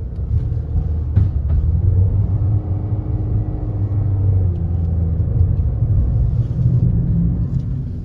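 Car driving along a road, heard from inside the cabin: a steady low rumble of engine and tyres.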